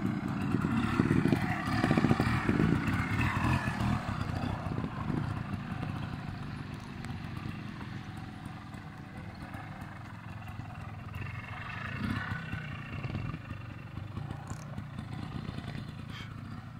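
Trials motorcycle engine revving in short, uneven bursts as the bike picks its way over rocks, loud at first, then fainter as it moves off, with another burst of throttle about three-quarters of the way through.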